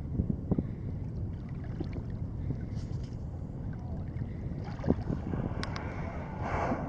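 Wind rumbling on the microphone over open water, with small splashes of water around a kayak and a brief rushing noise near the end.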